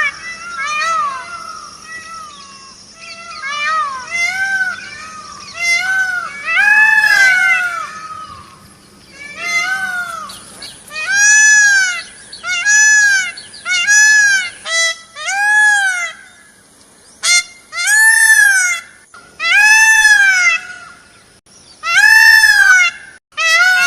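Indian peafowl calling: a long series of loud calls, each rising and then falling in pitch, about one every second or two, crowded and overlapping in the first half.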